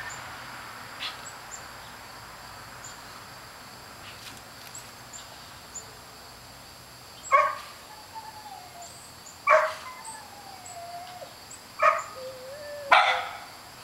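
A young puppy barking four sharp single barks in the second half, each trailed by a thin falling whimper, as it barks at a piece of plastic that has alarmed it.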